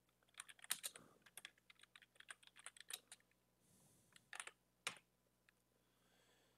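Faint typing on a computer keyboard: a quick run of key clicks for about three seconds, then a few separate keystrokes between about four and a half and five seconds in.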